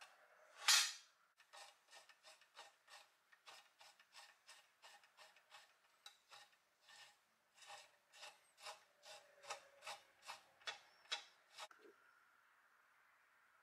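The pump mechanism of a 1950s Doepke Heiliner pressed-steel toy scraper worked by hand. A sharp metal clack comes about a second in, then a long run of even clicks, about three a second, growing louder toward the end.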